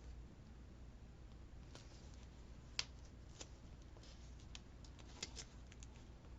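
Scissors snipping paper in faint, irregular short snips, the sharpest a little under three seconds in.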